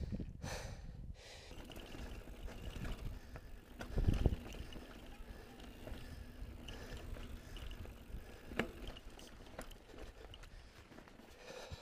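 On-One Codeine mountain bike ridden downhill over dirt and rock: tyres rolling and the bike rattling. There is a heavy knock about four seconds in and a sharp click near 8.6 s.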